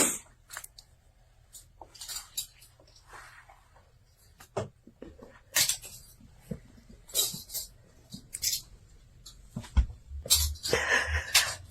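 Cats grooming each other: scattered soft licks and fur rustles, short and irregular.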